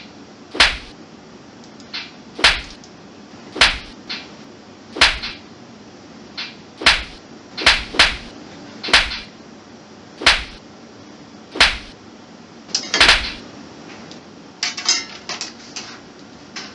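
A series of short, sharp sound effects played back one after another, about one every second or so, each a sudden strike with a brief tail, followed near the end by a quick rattling flurry of clicks.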